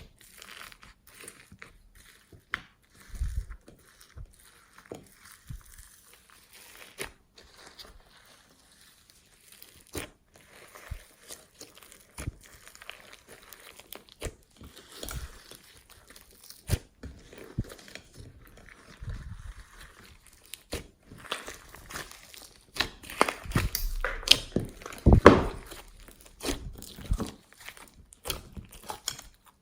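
Slime being squeezed, stretched and folded by hand, giving irregular sticky clicks, pops and crackles, loudest in a dense cluster near the end.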